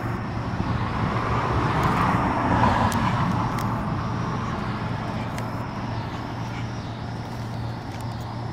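A road vehicle passing by, its noise swelling to a peak a couple of seconds in and then slowly fading, over a steady low hum.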